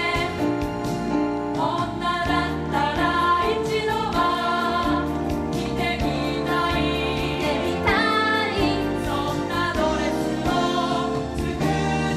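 A musical-theatre number: an ensemble of women's voices singing together over accompaniment with a steady beat.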